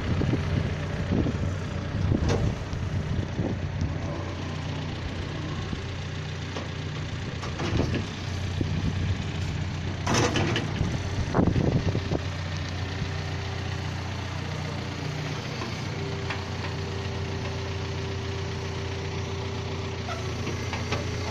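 Engine of a digging machine running steadily, with several sharp clanks about 2, 8, 10 and 11.5 seconds in, and a steady whine in the second half as the hole is dug.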